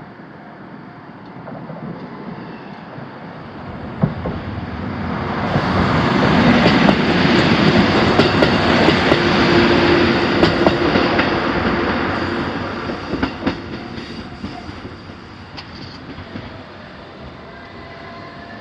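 A diesel railcar passing over a level crossing. It rises from about four seconds in and is loudest for several seconds in the middle, with the wheels clacking over rail joints. Then it fades away.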